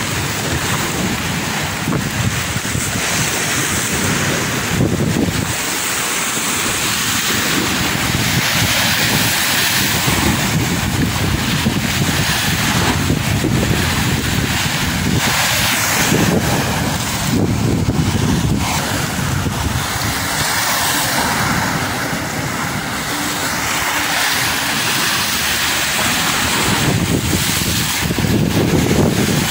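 Rough, storm-driven sea waves surging and breaking against a concrete seawall, with strong monsoon wind buffeting the microphone.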